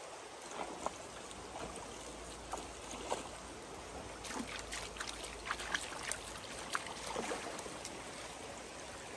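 Shallow rocky stream trickling steadily, with small irregular splashes and drips.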